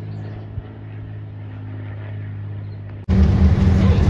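Steady low drone of a light propeller plane's engine passing overhead, holding a few even tones. About three seconds in it cuts abruptly to a much louder, rough rumble like wind buffeting the microphone.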